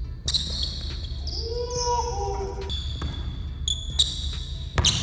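A basketball being dribbled on a hardwood gym floor, with sneakers squeaking in short high chirps. A few sharp bounces stand out, the loudest just after the start and near the end.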